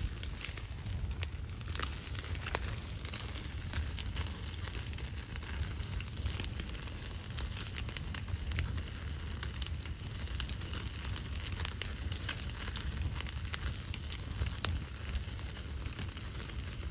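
Wood fire crackling, with frequent irregular pops and snaps over a steady low rumble.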